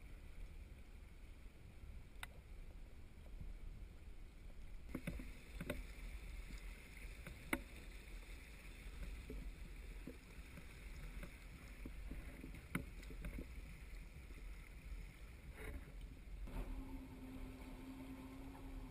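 Quiet water slapping and ticking against a small aluminum boat's hull over a steady low rumble, with scattered sharp knocks. A steady low hum comes in near the end.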